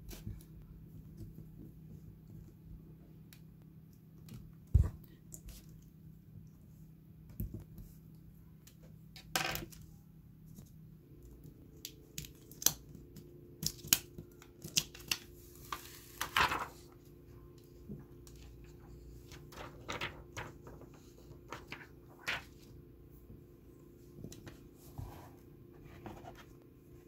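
Blue plastic protective film being peeled off a replacement iPad battery by hand, crinkling and crackling in short bursts with scattered clicks and taps of handling, and one longer peel about halfway through.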